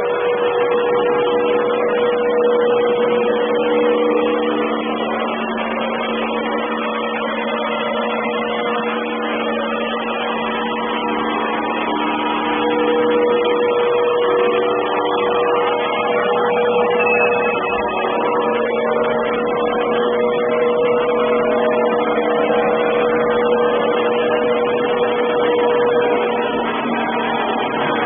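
Samsung robot vacuum cleaner running: a steady motor whir with a few humming tones that shift slightly, heavily distorted by the camera's microphone.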